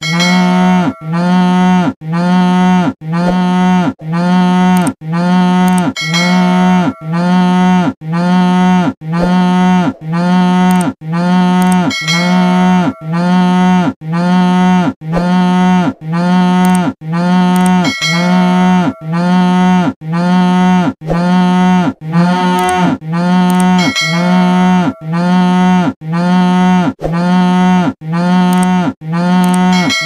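Cow mooing: a short, level call about once a second, repeated over and over with the same shape each time, like a looped recording.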